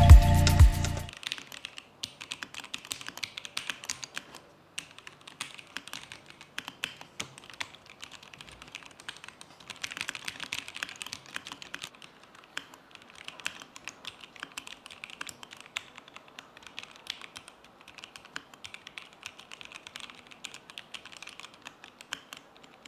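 Typing on a JamesDonkey RS2 mechanical keyboard with Gateron G Pro switches: a fast, uneven run of keystrokes with brief pauses.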